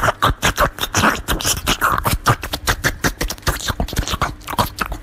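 A cat licking and smacking food off a spoon close to the microphone: a rapid run of wet clicks and smacks, several a second.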